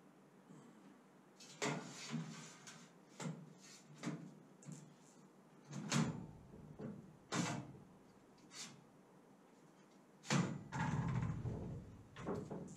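Irregular clanks and knocks of a steel bracket being handled and fitted against a steel boat-trailer frame, with a longer, heavier clatter of metal near the end.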